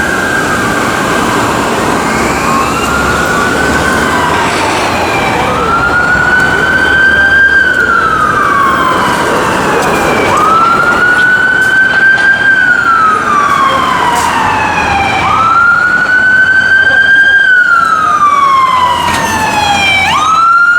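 Emergency vehicle siren wailing, its pitch climbing quickly and then falling slowly, about once every five seconds. It grows louder from about six seconds in, over traffic noise.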